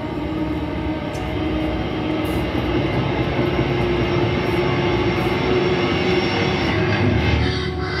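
Steady low rumbling drone with one held tone running through it, from a film's soundtrack.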